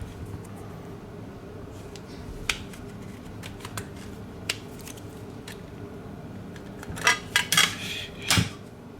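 Small tools and plastic parts clicking and tapping against a phone being taken apart, with scattered single clicks and a cluster of louder clicks and scraping about seven to eight and a half seconds in, over a steady low hum.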